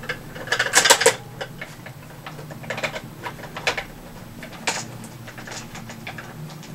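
Small number one Phillips screwdriver working small screws into a plastic toy blaster stock: a quick cluster of clicks and scrapes about a second in, then scattered lighter ticks.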